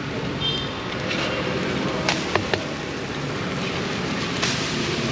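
Metal spatula clinking and scraping on a large flat griddle as an omelette is lifted and folded, with three sharp clinks about two seconds in. Under it runs a steady rumble of traffic.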